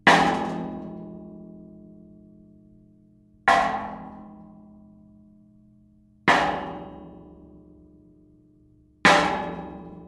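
A metal object struck four times, about every three seconds. Each hit rings out with an almost gong-like, fairly high-pitched tone that slowly fades.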